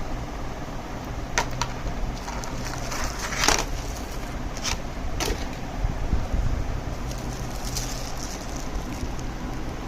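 Handling noise of an unboxing: a handful of short, sharp plastic clicks and knocks in the first half, the loudest about three and a half seconds in, then a soft rustle, over a steady low hum.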